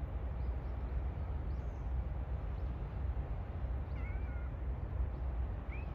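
A low steady rumble, with a short mewing call about four seconds in and a brief rising call near the end.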